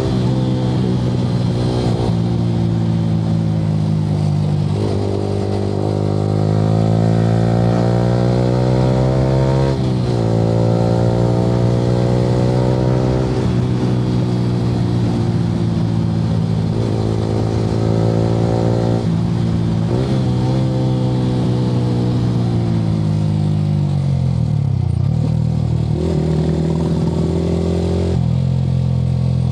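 Yamaha R15 V3's 155 cc single-cylinder engine through an aftermarket Akrapovic R9 exhaust, pulling hard. Its note climbs with the revs and drops sharply at each upshift, several times. Now and then it eases off and winds down before picking up again.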